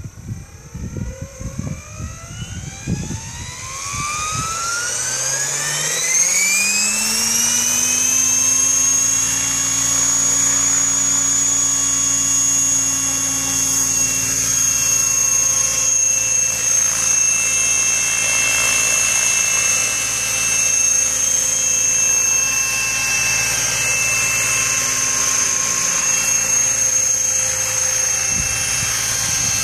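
Radio-controlled helicopter spooling up: its motor and rotor whine rises steadily in pitch over about seven seconds, then holds a steady high whine as the model hovers.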